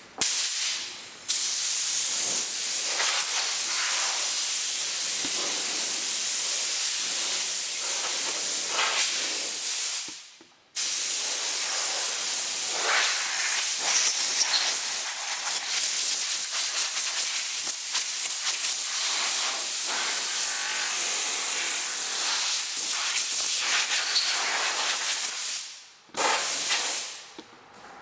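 Milwaukee HD18 cordless brushed angle grinder running a 3M Scotch-Brite purple strip disc against a car door's paint: a steady, hissing abrasive scrubbing. It cuts out briefly about ten seconds in, starts again, and stops near the end.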